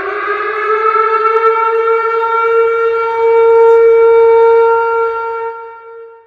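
Outdoor tornado warning siren sounding one long wail: it finishes rising in pitch in the first second or so, holds a steady tone, then fades away near the end.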